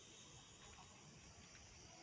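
Near silence: a faint, steady high-pitched hiss of night-time background.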